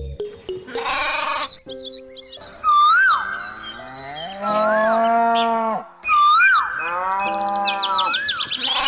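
Cattle mooing in three drawn-out calls, with four short rising-and-falling whistles between them, over background music.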